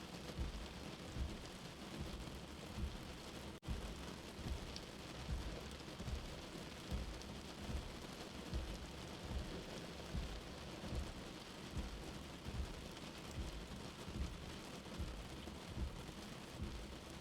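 Steady rain mixed with a slow heartbeat: soft low thumps a little faster than once a second. The sound cuts out for an instant about three and a half seconds in.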